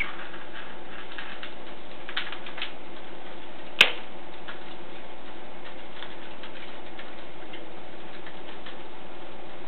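Light, irregular ticks and taps from a cat's play with a wand toy mouse on a hardwood floor, with one sharp click about four seconds in, over a steady hiss.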